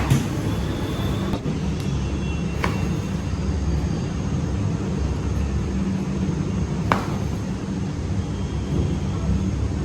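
A steady low machine hum, with three short clicks spread through it.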